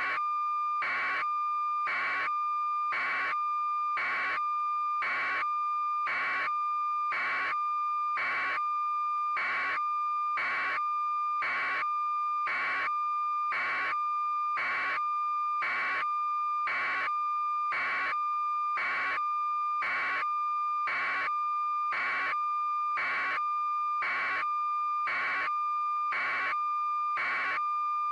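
Steady electronic tone overlaid with a regular beep about once a second, unchanging throughout.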